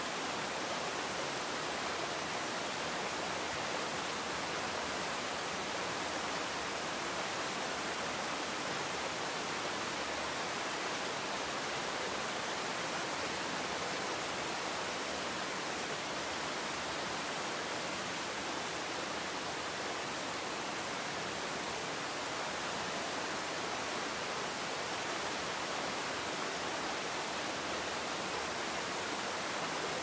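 Waterfall cascading over rocks into a pool: a steady, unbroken rush of falling water.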